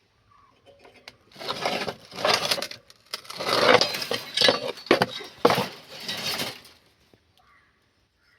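Scraping and clinking of hard objects being handled, in about five noisy bursts of roughly a second each, with sharp clicks among them.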